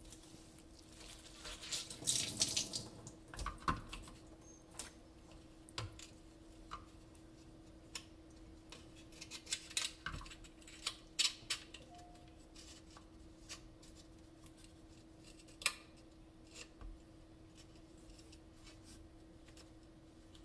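A towel rubs briefly about two seconds in. Then come scattered light clicks and knocks as a Naniwa Chosera 400 whetstone in its rubber holder is handled and set on a stainless-steel sink bridge. A faint steady hum runs underneath.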